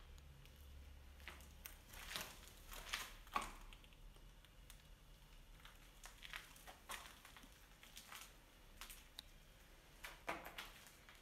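Faint, irregular crunches and scrapes of footsteps on grit and rubble on a concrete floor, a few at a time with pauses between.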